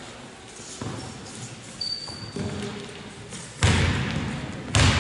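A basketball bouncing on a wooden sports-hall floor, two loud bounces in the last second and a half, each ringing on in the hall's echo. Fainter knocks come before them.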